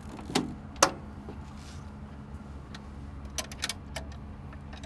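Sharp metal clicks and clacks from an excavator's side compartment door latch being worked and the door swung open, over a steady low hum. There are two clicks within the first second, then a quick run of several clicks about three and a half seconds in.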